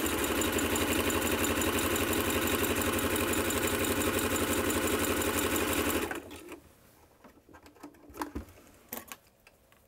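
Singer electronic sewing machine sewing a zigzag stitch at steady speed, the needle and hook making a fast even clatter with the motor whirring, as a test of freshly adjusted hook timing. It stops about six seconds in, followed by a few light clicks and rustles of the fabric being handled.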